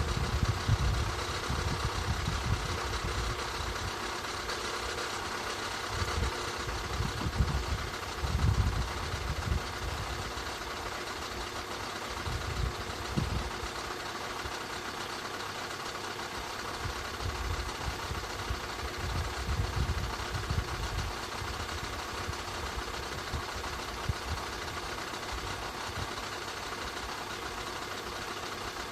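2013 Skoda 1.6 105 hp engine idling steadily. Low rumbling comes and goes over it, strongest about six to nine seconds in.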